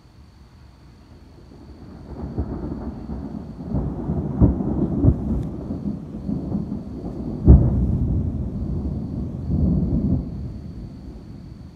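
A long peal of thunder that builds about two seconds in and rolls on, with several sharp cracks. The loudest comes about two-thirds of the way through, and the rumble dies away near the end.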